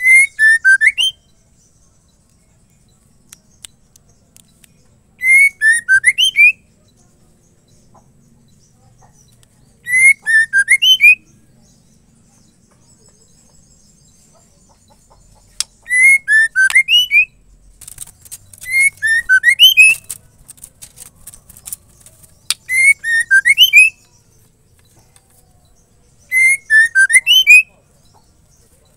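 Female white-rumped shama calling: short phrases of gliding whistled notes over high rapid chatter, each about a second long, repeated about every four to five seconds with a longer run of phrases near the middle. It is the female's call to males.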